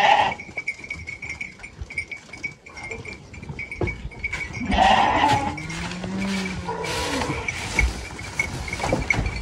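Sheep bleating, with one long wavering call about five seconds in, over the rustle and munching of a flock feeding on alfalfa hay.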